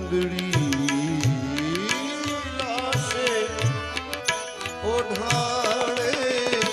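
Indian devotional bhajan accompaniment: tabla keeping a steady beat with low bass-drum strokes and frequent bright ticks of small hand cymbals, over steady held drone notes and a melody that glides smoothly up and down in pitch.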